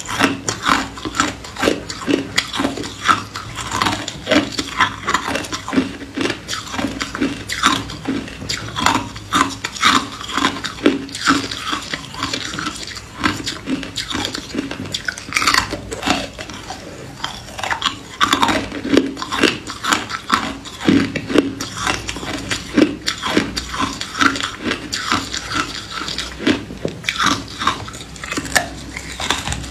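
A block of ice being bitten and chewed, with sharp cracks and crunches coming several times a second throughout.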